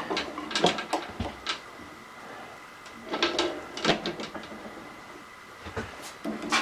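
Three short clusters of light knocks and clatter as metal parts and tools are handled at a workbench, over a faint steady high-pitched hum.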